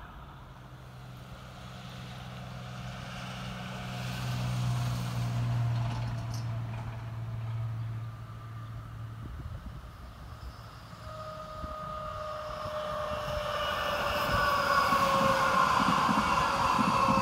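Stadler ABe 4/12 metre-gauge electric low-floor train approaching and passing close by, with wheel and rail noise. Its traction-motor whine, several tones together, falls slowly in pitch and grows louder over the second half. A low steady hum fills the first half.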